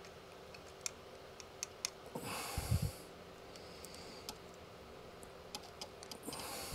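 Faint light clicks and taps of small metal carburettor parts being handled as a blocked slow-idle jet is worked on by hand. A short noisy breath comes about two seconds in, and another near the end.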